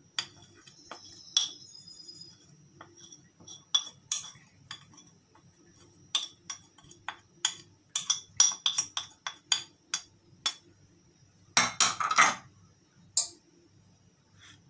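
Metal spoon scraping and tapping ground spices off a ceramic plate into a stainless steel pressure cooker: a run of irregular light clinks of metal on china and steel, with a louder clatter about twelve seconds in.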